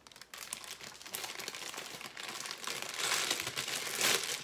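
Plastic LEGO parts bags crinkling as they are handled, a steady crackle that gets louder in the last second and a half.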